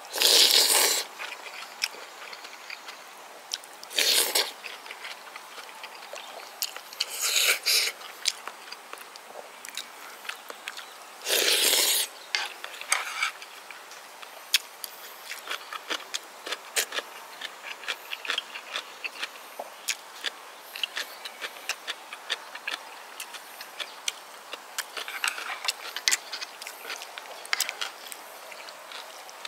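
Close-miked eating of pork gukbap: several short loud slurps of soup-soaked meat and rice, with wet chewing and many small mouth clicks and smacks between them.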